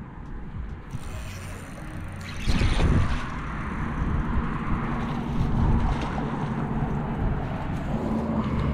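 Wind rumbling on the microphone and handling noise, with water splashing as a hooked fish thrashes at the surface near the bank. The loudest burst comes about two and a half seconds in.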